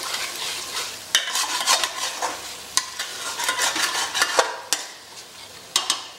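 A spatula stirring and scraping thick onion-and-spice masala around a large aluminium pot with repeated strokes, over a steady sizzle. The masala is being fried down (bhuna) with a little mutton stock. The stirring eases off about five seconds in, and two sharp clacks come just before the end.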